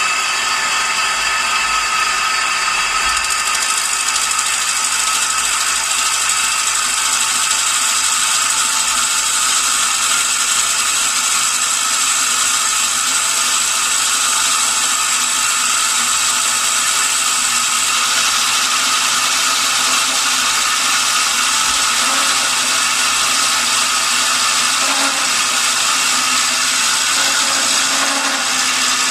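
Metal-working lathe running steadily, a constant mechanical whine with many fixed tones and a strong high hiss.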